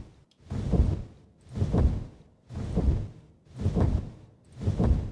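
Designed dragon wing-flap sound effect: a slow, regular series of large, heavy whooshing wing beats, about one per second, weighted toward the low end.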